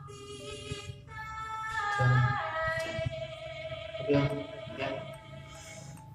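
A slow song with a singing voice holding long notes, one of them sliding down about two seconds in.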